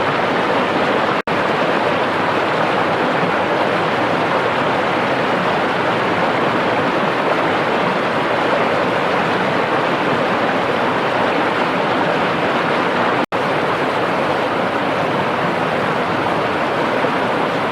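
Waterfall rushing: a loud, steady roar of falling water, broken by two split-second gaps.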